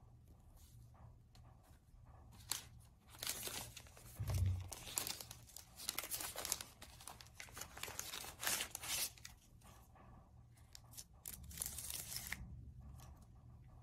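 Thin clear plastic wrapping crinkling and tearing in irregular bursts as it is pulled off a pair of sunglasses, with a dull bump about four seconds in; near the end a protective film is peeled from the frame.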